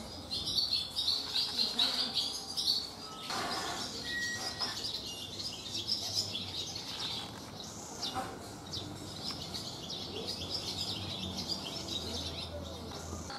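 Barn swallows twittering at the nest: rapid high chirps, thickest in the first three seconds, then thinner and more scattered.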